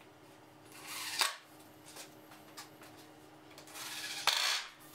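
Two short rasping bursts about three seconds apart, each ending in a sharp click: screws being driven through a plywood back fence, one at each end.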